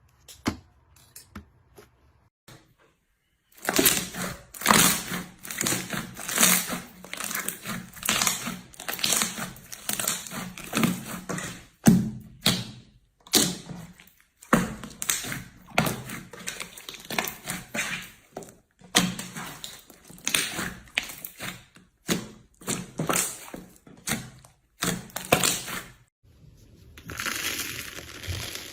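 Slime being squeezed and pressed by hand in repeated strokes, crackling and popping with each press. It starts a few seconds in.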